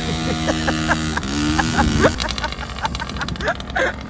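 Small two-stroke pocket-bike engine running with a steady buzz, rising in pitch about two seconds in, then giving way to a rougher noise as the bike is ridden off; laughter over it.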